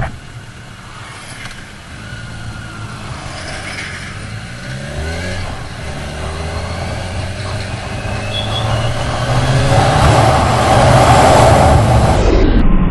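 Kawasaki Ninja 1000SX inline-four engine accelerating hard from low speed, its pitch climbing. A rush of wind noise grows louder as speed builds and dominates near the end.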